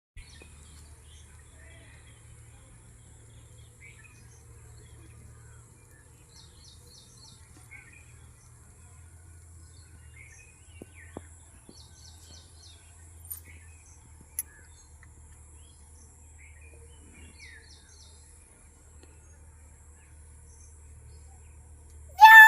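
Faint, scattered chirps of small birds over a low steady hum. Near the end, one loud peafowl call, a meow-like wail that falls in pitch.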